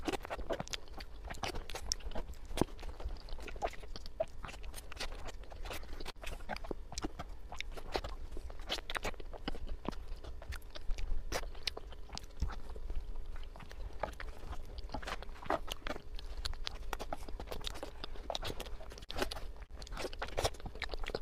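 Close-up eating sounds: a person chewing mouthfuls of soft cream cake, with many small irregular mouth clicks.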